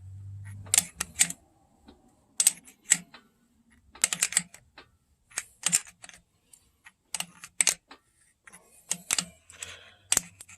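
Short clusters of sharp metallic clicks, a few every second or so, from a wrench being worked back and forth on the damper installer tool's screw as the vibration damper is pressed onto the 5.7L Hemi crankshaft.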